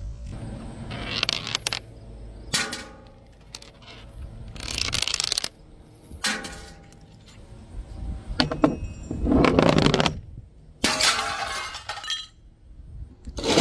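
Glass bottles smashing one after another: about seven separate shattering crashes, several with a brief ringing clink of glass.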